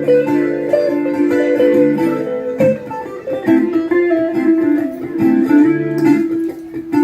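Guitar music: an instrumental passage of a song, with held chords under a moving melody line.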